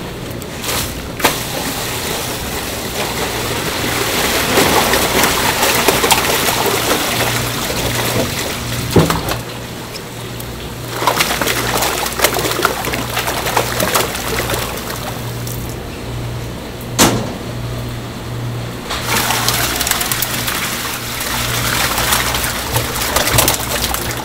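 Water splashing and sloshing as live fish are scooped out of a holding tank in a plastic basket, in surges a few seconds long, with a few sharp knocks of the basket and a steady low hum underneath.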